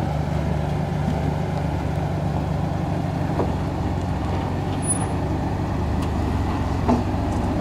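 Jeep Wrangler Rubicon's engine running steadily at low revs as it crawls slowly over rocks, with a small knock near the end.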